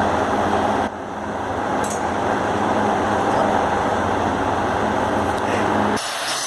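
Electric exhaust fan running, with a steady rush of air over a low motor hum; the hum stops shortly before the end.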